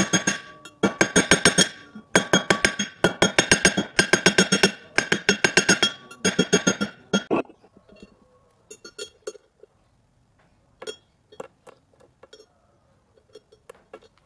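Rapid light hammer blows on a small steel rod held against a steel anvil block, about eight to ten ringing strikes a second in runs of around a second. The hammering stops about seven and a half seconds in, followed by a few scattered clinks of small metal parts, washers and a turnbuckle, being handled on the block.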